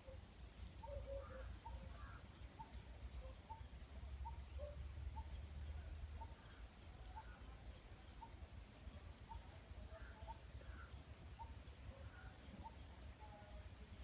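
Rural outdoor ambience: a steady high insect trill with short chirps repeating about twice a second, over a low rumble.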